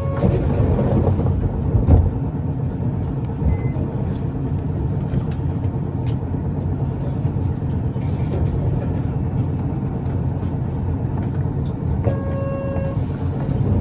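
Isuzu Erga diesel city bus heard from inside the cabin while driving: a steady engine and road rumble, a single knock about two seconds in, and a short electronic beep near the end.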